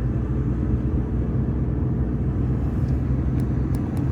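Steady low road and engine rumble heard inside a moving Citroën car, with a few faint clicks near the end.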